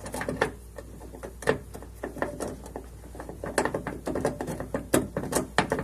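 Irregular metallic clicks and scrapes of a deep socket turning the nuts that hold a door check assembly to a car door.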